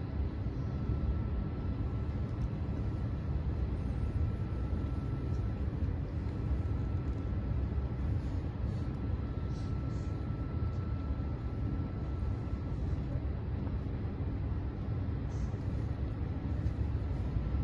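Steady low rumble of city background noise, with a faint thin high whine held for most of the first thirteen seconds.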